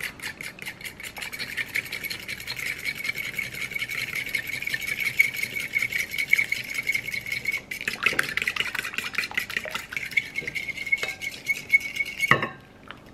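Metal fork whisking rapidly in a ceramic bowl, many quick clinks a second with the bowl ringing, as an egg-and-mayo broth base is beaten while hot water is poured in from a glass measuring cup. The whisking stops abruptly near the end.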